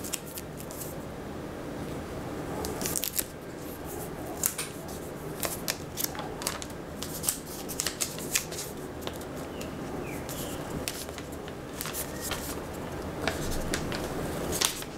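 Irregular crisp clicks and crinkles of plastic as a POCO X3 NFC smartphone and its clear plastic case are handled and the printed protective film is peeled off the screen.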